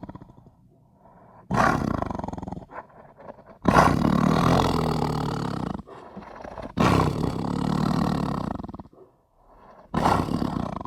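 Malayan tiger roaring: four roars, each lasting one to two seconds and fading out, spaced a couple of seconds apart, the last near the end.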